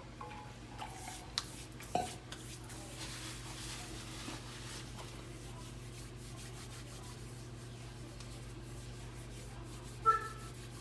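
A low steady hum with a few soft clicks and rubbing sounds of handling, and one short, sharp pitched sound near the end.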